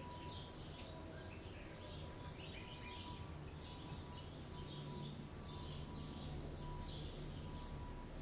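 Small birds chirping in quick, short notes, several a second throughout, over a low steady hum.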